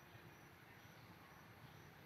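Near silence: faint steady background hiss with a low hum, no distinct sound events.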